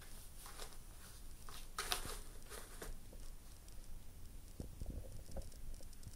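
Cat scratching and rustling inside a corrugated cardboard scratcher, with several short scratchy bursts in the first three seconds, then a few soft knocks near the end.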